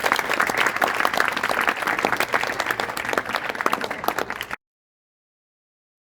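Audience applauding with many hands clapping at once. It cuts off abruptly about four and a half seconds in, leaving dead silence.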